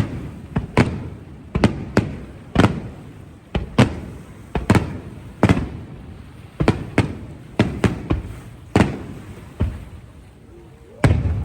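Fireworks bursting overhead in quick succession, about one to two sharp bangs a second, each trailing off in a rumbling echo. There is a short lull near the end, then another bang.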